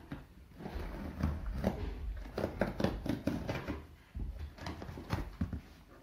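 Knife slitting the packing tape on a cardboard shipping box, with irregular crackling, scraping and rustling of tape and cardboard and a few dull knocks against the box.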